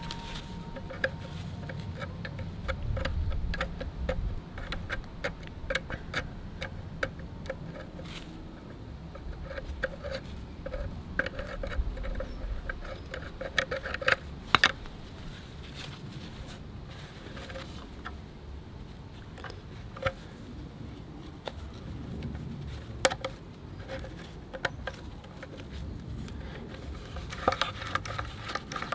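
Hinge of a Rolls-Royce Silver Spirit fuel filler flap, freshly greased, being worked back and forth by hand: a long run of small, irregular metal clicks with faint creaks, as the grease is worked into a hinge that had left the flap stuck shut.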